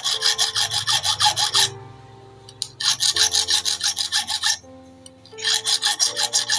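Small flat metal file rasping across the worn-flat teeth of an overlock machine's feed dog to sharpen them again. It comes in three bursts of quick short strokes, about nine a second, with pauses between.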